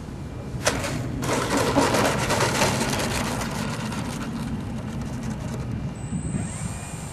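Radio-controlled aerobatic model airplane landing on an asphalt runway: a sharp knock as it touches down, then a rattling rumble as its landing gear rolls out, fading off. A thin steady high whine begins near the end.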